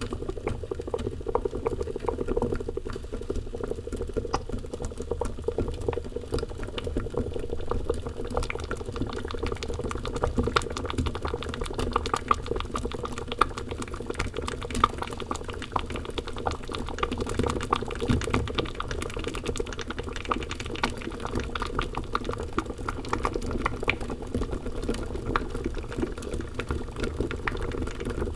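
Thick liquid boiling, a dense continuous bubbling with many small pops and plops over a low rumble.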